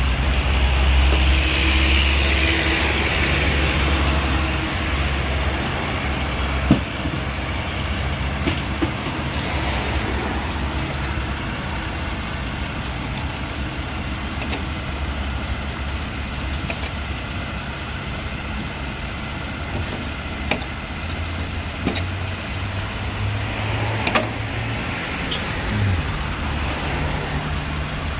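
A steady low engine hum, loudest in the first few seconds, under a stiff plastic brush scrubbing a fish fillet on a steel table. A few sharp knocks on the table follow later.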